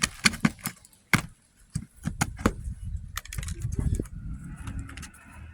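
Metal snake tool working under asphalt shingles to free the nails: a run of irregular sharp clicks and scrapes, thinning out after about four seconds.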